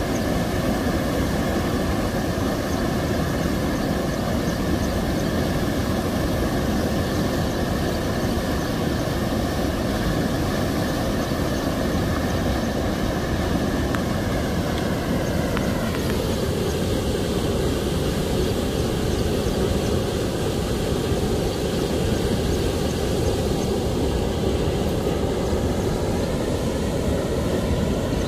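Steady rush of flowing water. Its tone slides lower a little past halfway and climbs back near the end.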